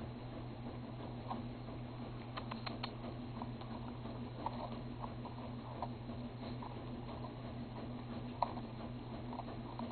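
Papillon puppy gnawing and chewing at a dog tennis ball stuffed with Kong filling: small irregular clicks and squeaks of teeth and mouth on the ball, the sharpest click about eight seconds in.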